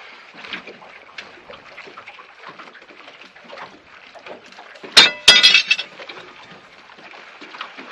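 Small waves lapping and slapping against a boat's hull. About five seconds in, two sharp knocks about a third of a second apart ring briefly, like something hard striking a metal fitting on the boat.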